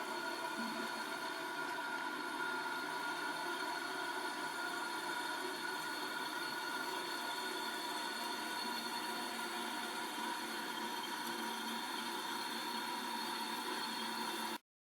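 Toilet cistern refilling after a flush: a steady hiss of water through the fill valve with a faint whistling tone, cutting off suddenly near the end.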